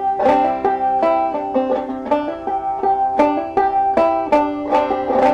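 Five-string banjo played clawhammer style in double C tuning, picking out the melody of an old-time fiddle tune at a steady pace, with strums added on some beats for emphasis.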